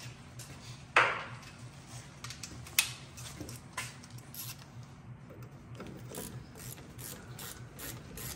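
Hand ratchet clicking in short strokes as a brake caliper mounting bolt is run in, after a couple of sharp metal knocks in the first few seconds.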